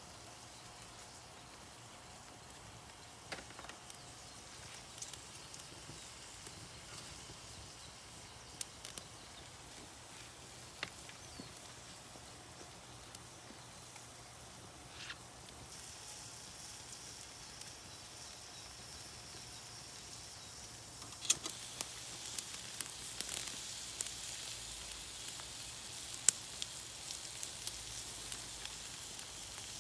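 Wood fire crackling with scattered sharp pops. A faint high hiss joins about halfway, and from about two-thirds in the pops come louder and more often.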